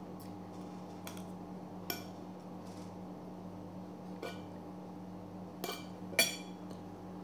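A metal spoon and fork clinking and scraping on a ceramic plate of fried rice while eating: about six separate sharp clinks, the loudest near the end, over a steady low hum.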